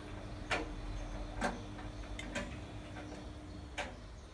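Bosch Avantixx 7 kg washing machine at the end of its programme: a few irregular sharp clicks from the machine over a faint steady hum, which cuts off with a final click near the end.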